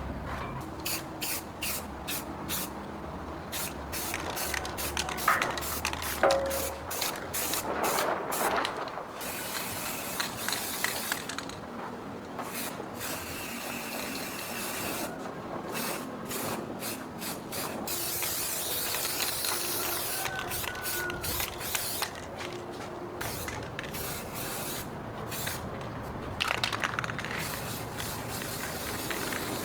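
A pressurised spray hissing in many short bursts, with a longer unbroken spray about two-thirds of the way through.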